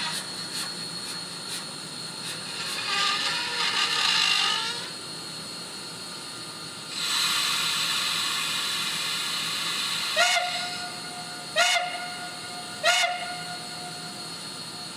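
Steam sounds from a TCS WOW steam sound decoder in a Pennsylvania Railroad N1s 2-10-2 model locomotive, played through its small onboard speaker. A burst of steam hiss comes first, then a longer steady hiss, then three steam-whistle blasts about a second and a half apart.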